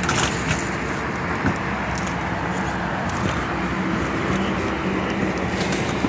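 Steady road traffic noise from a nearby freeway. A low steady hum joins it about a second and a half in.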